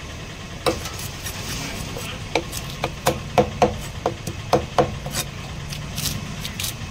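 Large fish-cutting knife chopping against a wooden block while an Indian mackerel is cut up: a quick, uneven run of about a dozen sharp knocks that stops about five seconds in.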